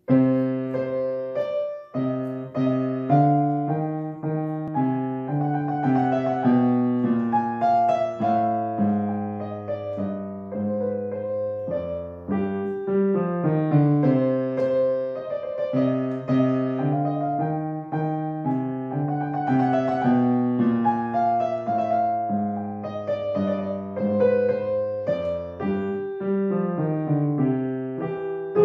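Grand piano played solo, beginning from silence: a melody moving over sustained low bass notes and chords.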